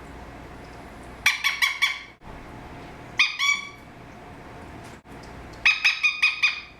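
Green male Eclectus parrot calling in three bursts of quick, repeated short notes, the last burst the longest with about six notes.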